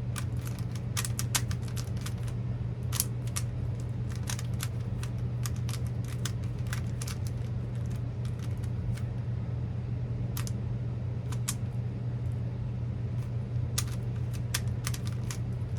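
Rubik's-style puzzle cube being turned quickly, its plastic layers giving many irregular clicks and snaps, over a steady low hum.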